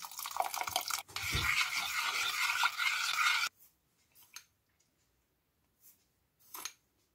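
Vinegar poured in a stream into a stainless steel pot of chopped vegetables, splashing steadily and then stopping abruptly about three and a half seconds in. After that only a few faint taps from a spoon.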